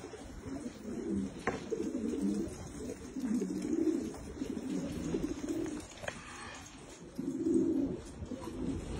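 A flock of Peshawari fancy pigeons cooing, many low coos overlapping continuously. Two short sharp clicks cut through, about a second and a half in and again about six seconds in.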